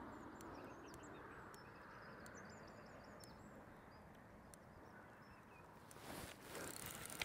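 Near silence: faint outdoor ambience with a few faint, high bird chirps.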